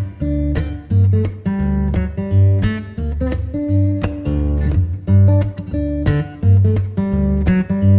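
Background music: a strummed acoustic guitar playing chords to a steady beat with a bass line, the instrumental part of a pop song.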